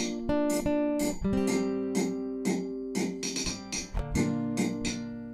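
Acoustic guitar music, strummed chords with held notes that change every half second or so.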